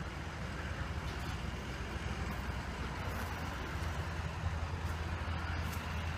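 Steady low engine-like rumble, as of a motor vehicle running nearby, under outdoor background noise.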